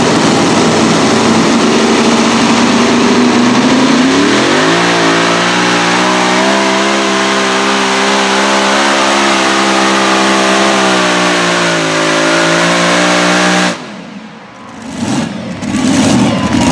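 Supercharged V8 Hemi engines of a pulling tractor running loud, then revving up sharply about four seconds in and held at high revs through the pull. The revs ease slightly, then the sound cuts off abruptly near the end as the engines are shut down.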